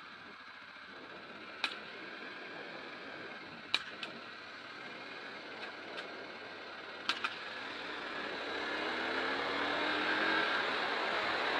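Wind rush on the microphone over the 2003 Aprilia Tuono's 998 cc V-twin, with a scatter of sharp exhaust pops, the bike backfiring as it slows into a roundabout. Near the end the engine note and wind noise rise together as it accelerates away.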